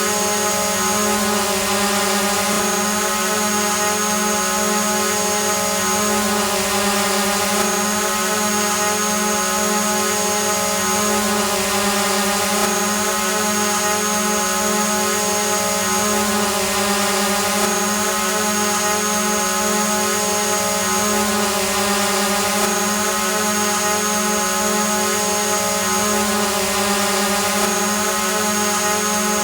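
Hovering drone: a steady buzzing hum of its motors and propellers at one even pitch over a hiss, with a faint high whine that drops out briefly about every five seconds.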